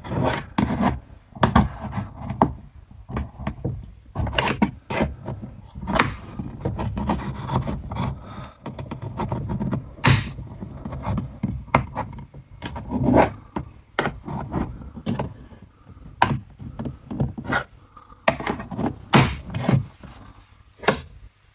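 Trim removal tool prying at plastic door armrest trim, scraping and rubbing, with irregular sharp clicks and knocks as a power window switch is worked loose from its clips.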